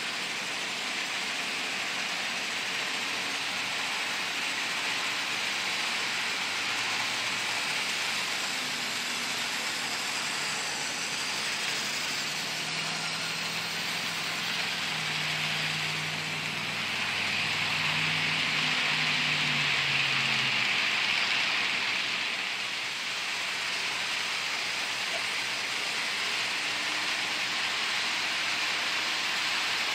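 HO-scale model freight train, a Life-Like GP38 diesel model pulling freight cars, running on the layout's track: a steady whir of the locomotive's motor and wheels rolling on the rails, with a low hum. It grows louder a little past halfway as the train passes close.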